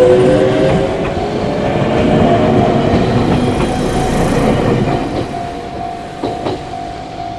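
Electric train passing over a level crossing, loud at first with wheel clatter over the rail joints, then fading after about five seconds, with a few last clacks. The crossing alarm rings a steady tone throughout.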